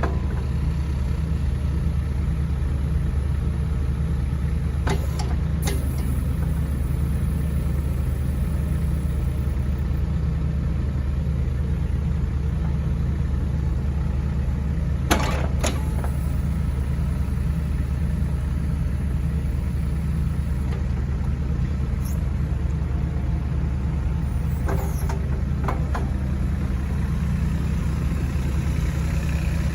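Kubota U-20-3S mini excavator's diesel engine idling steadily, with a few brief clicks or knocks over it.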